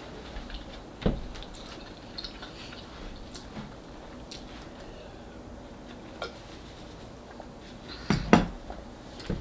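Quiet handling sounds at a dining table: a paper napkin rustling and light knocks of tableware and a glass jar of water being lifted and handled. There is a sharp knock about a second in and two louder knocks close together near the end.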